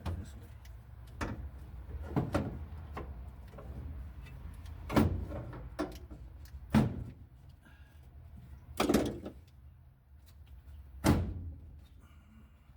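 Irregular knocks and clunks, about six of them a second or two apart, from the truck's ECU being handled and mounted back in place.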